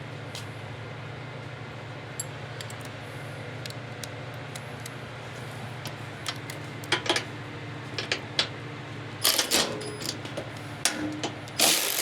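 Hand tools clinking and clicking against metal, scattered over a steady low shop hum, with a louder scraping burst about nine seconds in. Near the end a socket ratchet starts working loudly.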